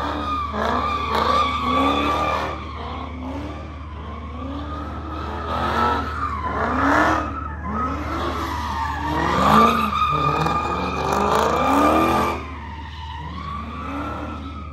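A car drifting in circles with its tyres squealing in long wavering screeches. Its engine revs up and down over and over, and the noise eases a little near the end.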